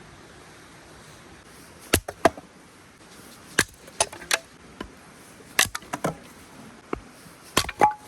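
Firewood being chopped into kindling: about ten sharp, irregular chopping strikes.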